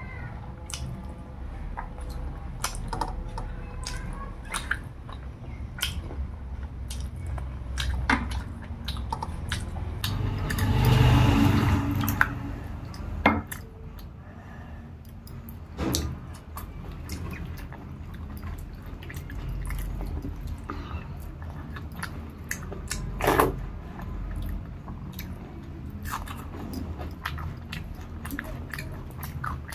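Close-miked eating of rice and dal with curries: chewing and wet mouth and lip smacks, with many small clicks, and a longer, louder wet sound about eleven seconds in.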